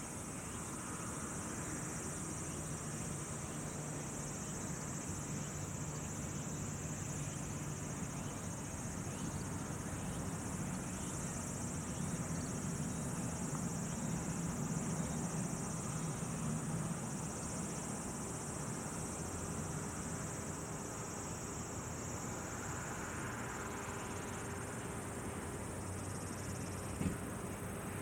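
Steady high-pitched insect chorus, with a low steady hum beneath it and a single sharp click near the end.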